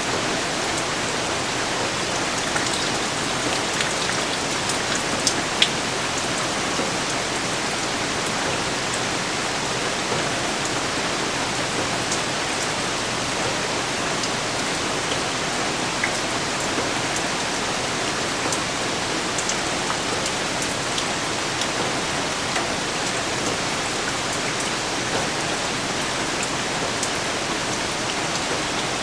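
Steady rain falling: an even hiss with scattered sharper ticks of single drops hitting a surface, one louder tick about five and a half seconds in.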